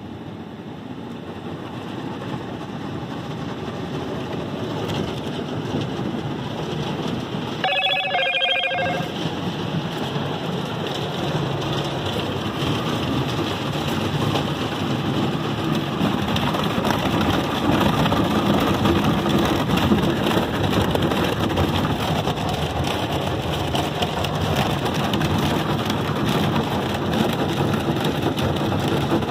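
Automatic car wash heard from inside the car: water spraying and drumming on the body and glass, a steady rushing that grows louder over the first twenty seconds. A short ringing tone sounds about eight seconds in.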